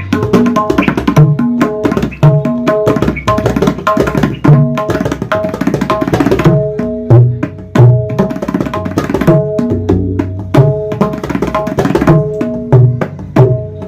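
A tabla pair played solo, the treble drum tuned to A-sharp with its syahi not yet finished, in a fast chakkardar composition. Rapid strokes ring with clear pitched tones from the treble drum over deep bass strokes from the bayan.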